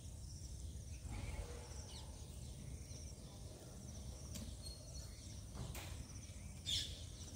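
Outdoor ambience: a steady low rumble with faint, repeated high chirping, and one brief, sharp high call near the end.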